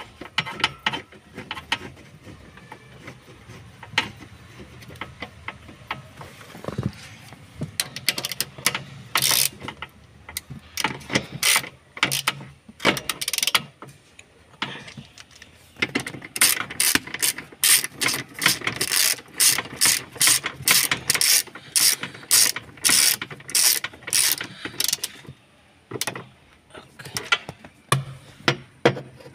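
Ratchet wrench clicking as a bolt is turned with a socket, in runs of quick strokes broken by short pauses.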